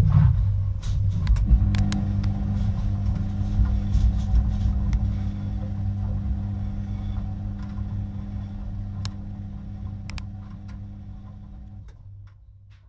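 Washing machine running: a steady low rumble with a constant motor hum and a few faint clicks, fading out gradually until it is gone near the end.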